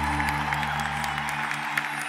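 Concert crowd applauding as the band's last sustained chord fades away about three-quarters of the way in, with scattered claps growing after it.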